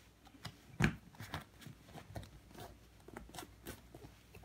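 Hands pressing and pulling a glued leather repair patch over a sofa armrest: scattered soft crinkles and taps, the sharpest just under a second in.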